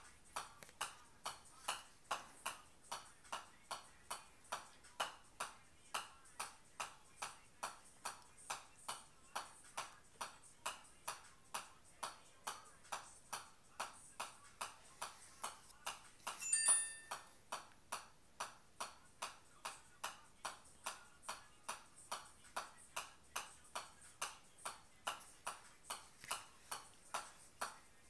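Golf ball bounced again and again on the face of a pitching wedge, a steady click about two and a half times a second. A short ringing tone sounds once, about sixteen seconds in, louder than the clicks.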